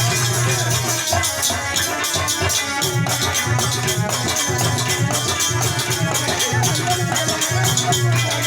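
Instrumental passage of a Hindi devotional song: fast, even shaker-like percussion strokes over a low pulsing bass, with a wavering melody line coming in near the end.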